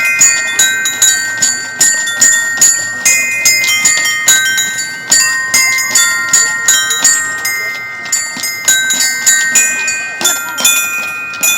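Metal chimes or bells struck over and over in a quick, uneven rhythm, about three strikes a second, their clear ringing tones carrying over one another.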